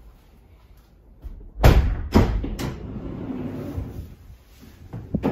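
Mercedes Sprinter van's driver door slammed shut: a heavy thud about a second and a half in, followed by two more sharp knocks and a short rattling rumble.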